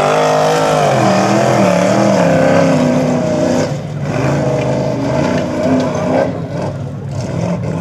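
Formula Offroad hillclimb buggy's engine under hard throttle as it climbs a steep sand slope. The revs swing up and down, dip briefly a little under four seconds in, then run weaker toward the end.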